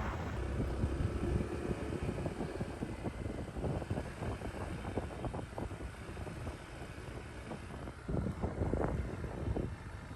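Wind buffeting the microphone on a moving motorcycle, in irregular gusts over a low, steady rumble.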